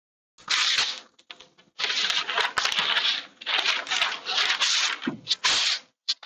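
Hand sanding the edge of a wooden cabinet panel with a sheet of sandpaper: a rough scratchy rubbing in uneven back-and-forth strokes, each lasting about half a second to a second, with short pauses between.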